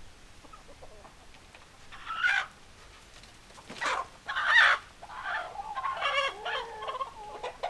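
Chickens clucking and calling: a few loud, separate squawks in the first half, then a run of clucking calls.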